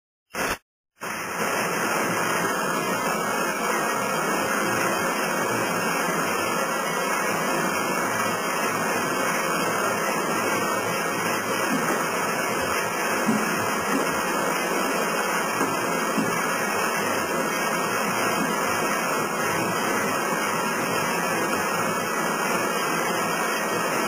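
A frame sawmill in full operation, its saw frame, drive belts and shafting all running as a log is cut. It is heard as a loud, steady, even rush of noise that starts about a second in, after a moment of silence.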